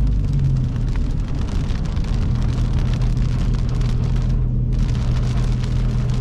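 Inside a moving car in the rain: steady engine and road rumble, with raindrops hitting the roof and windshield.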